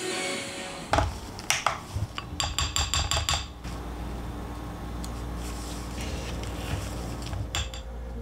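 A spoon knocking and clinking against a glass mixing bowl as thick Greek yogurt is scooped in. A few separate knocks come first, then a quick run of about six clinks, then two more taps near the end over a low steady hum.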